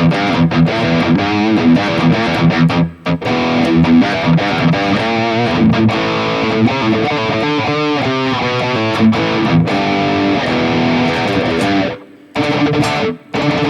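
Distorted high-gain electric guitar played through a Mooer Prime S1 modeling unit, riffing in chugging chords and single notes with wavering vibrato notes about eight seconds in. The sound drops off sharply in two short stops, a little after three seconds and near the end.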